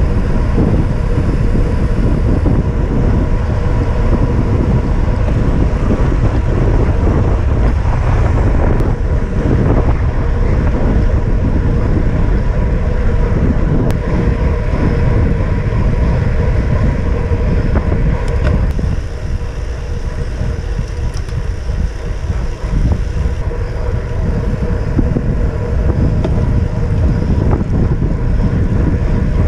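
Wind buffeting an action camera's microphone on a bicycle riding fast: a loud, steady low rumble that eases a little about two-thirds of the way through.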